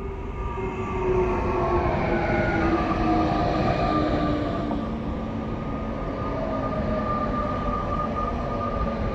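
Double-deck electric multiple-unit train, two units coupled, running past close by. Its motor whine slides down in pitch as the front goes by, loudest from about one to four seconds in, then a steady whine and rolling rumble go on as the carriages pass.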